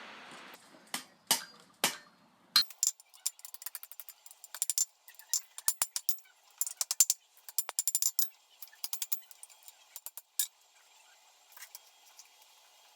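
Hammer striking hot steel on an anvil while bending the tine ends of a forged door handle. The blows are sharp, irregular and light, often in quick clusters of several taps, with a thin metallic ring.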